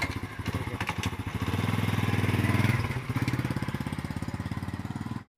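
Small single-cylinder motorcycle engine running as the rider pulls away: a fast, even putter that grows louder for about a second, then settles to a steady beat, and cuts off suddenly near the end.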